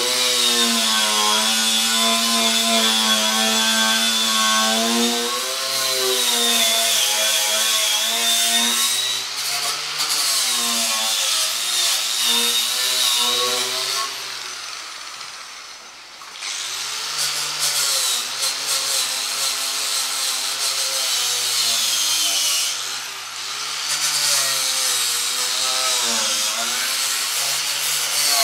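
Electric angle grinder worked against a metal ammo box, its motor pitch sagging and recovering as it is pressed on, with a hissing scrape over it. About halfway through the sound fades away for a couple of seconds, then picks up again sharply.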